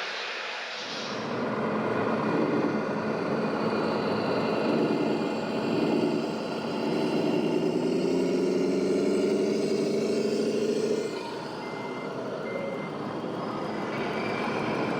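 Sound module of a 1/14-scale RC truck playing a diesel engine, rising slightly in pitch and holding for several seconds before dropping away about eleven seconds in. A few short reversing beeps follow.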